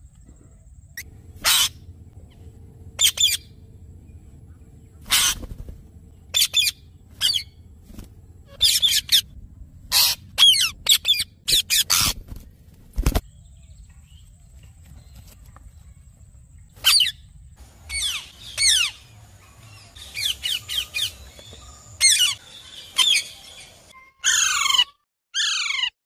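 Ringneck-type parakeets, Indian ringnecks and an Alexandrine, giving short sharp squawks every second or two, some in quick pairs. The call ends in a run of loud, falling screeches.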